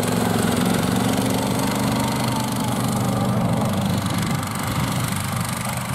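Snowdog motorized dog sled's small four-stroke engine running steadily as it tows a sled across the ice, growing quieter as it pulls away.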